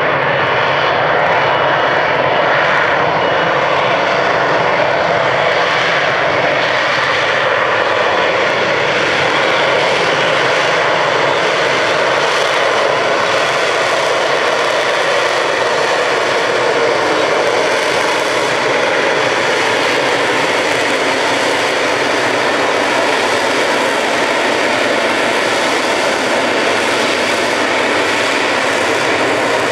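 Harrier jump jet hovering, its Rolls-Royce Pegasus vectored-thrust turbofan running loud and steady, with a thin high whine over the rush of the jet exhaust.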